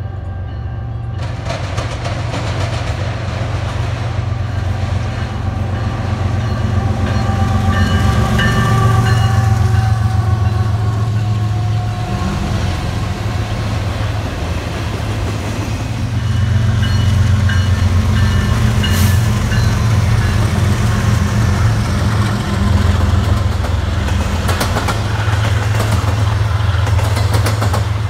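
Intermodal freight train passing close by: a steady low rumble of cars rolling over the rails that builds over the first several seconds, with wheels clicking over the rail joints.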